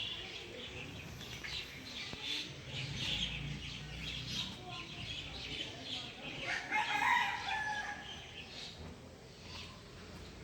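Birds calling, with many short high chirps throughout and one longer, louder call about six and a half seconds in.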